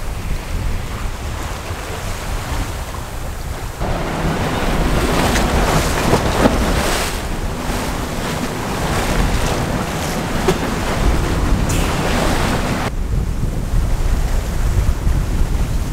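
Wind buffeting the microphone and water rushing past the hull of an aluminium Reinke 10M sailing yacht under way at sea. A louder rush of water and spray sets in about four seconds in and drops back sharply near thirteen seconds.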